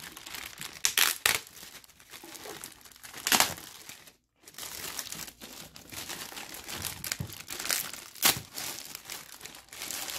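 Clear plastic bag crinkling and rustling as hands pull it off a packaged inverter, with several sharper, louder crackles and a short break about four seconds in.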